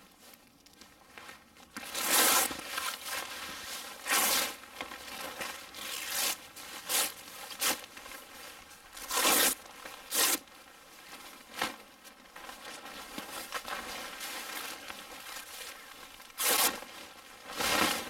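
A reflector tarp with a silver side being unfolded and shaken out, crinkling and rustling in repeated loud bursts. The loudest bursts come about two seconds in, around the middle and near the end.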